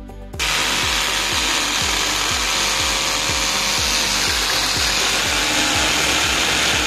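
Makita cordless hammer drill boring into concrete at the base of a formwork panel. It starts about half a second in and runs steadily under load, over background music with a steady beat.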